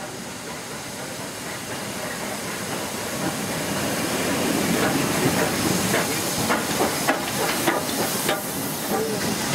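Steam locomotive passing close along the platform, its steam hissing and growing louder as it comes by. About halfway through, a run of sharp knocks begins as the engine and its tender pass, from the wheels running over the rail joints.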